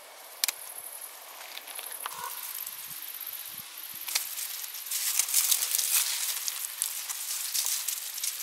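Leaves and vines of garden plants rustling as they are handled and pulled out of soil, growing louder about halfway through, with a couple of sharp snips from hand pruners cutting stems, one right at the start and one about four seconds in.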